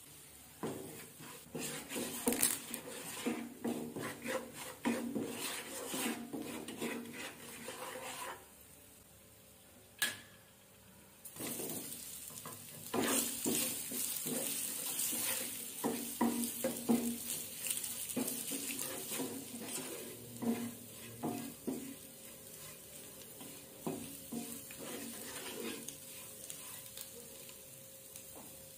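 Wooden spatula scraping and stirring boiled egg pieces through spice masala in a non-stick frying pan, with the oil sizzling on a low flame. The strokes come in irregular bursts. There is a short lull with a single knock about ten seconds in, after which the sizzling is louder.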